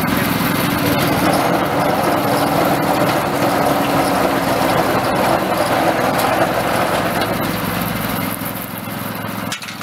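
Small engine running steadily, powering a Christmas tree netting machine's chain conveyor as a tree is fed through. It gets quieter about eight seconds in.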